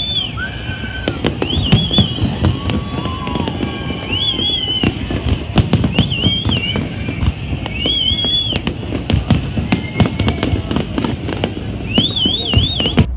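Aerial fireworks bursting in quick succession: frequent sharp bangs and crackles over a continuous low rumble. A high wavering tone comes and goes about every two seconds.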